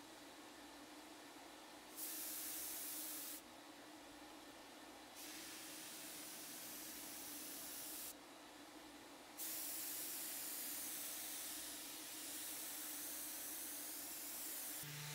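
Paint spray gun hissing as it sprays in three passes: a short one about two seconds in, a longer one from about five seconds, and the longest from about nine seconds on. A steady low hum runs underneath throughout.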